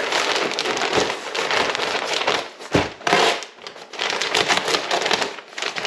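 Large plastic bag of potting mix crinkling and crackling as it is handled and pulled open, with a dull thump a little under three seconds in.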